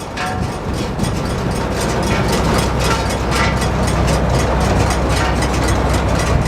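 Tractor engine running steadily while a Case IH RB464 round baler turns on the 540 PTO, with a rapid, even clatter of several clicks a second over the engine's low hum.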